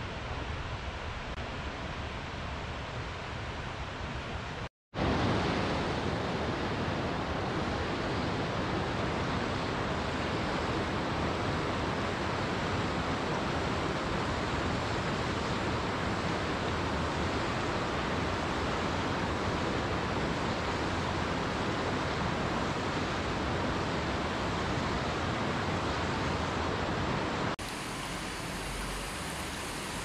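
Steady rush of a mountain river running over stones and small cascades. It cuts out for a split second about five seconds in and comes back louder, then turns slightly quieter near the end.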